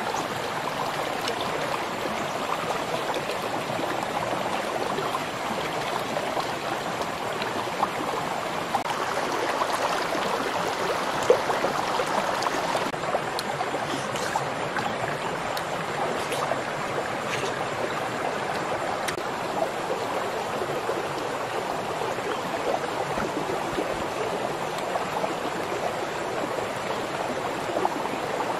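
Steady rushing of running water, with a few faint clicks in the middle.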